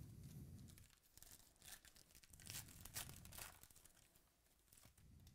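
A foil trading-card pack is torn open and crinkled by hand. A soft handling rustle comes first, then a quiet run of crackles that is strongest between about two and three and a half seconds in.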